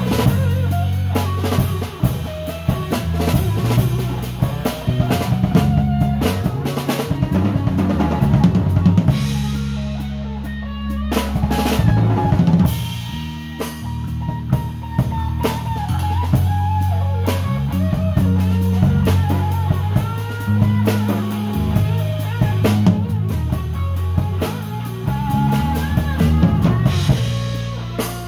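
Rock band playing an instrumental passage: drum kit with kick, snare and rimshots under a bass guitar line, with an electric guitar playing bending lead notes.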